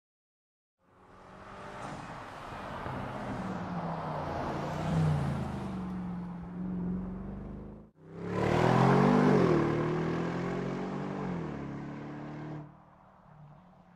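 Bentley Continental V8 S's twin-turbo V8 running and revving, its pitch rising and falling. There is an abrupt break about halfway through, then a second, louder rev that rises and falls before the sound drops away to faint near the end.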